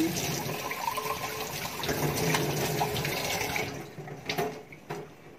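Water running from a tap, stopping a little over halfway through, followed by a few light clicks.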